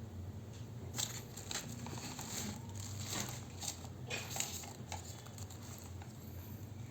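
Hands handling a phone's retail box and packaging: a run of light clicks, taps and crinkles, thickest in the middle, over a low steady hum.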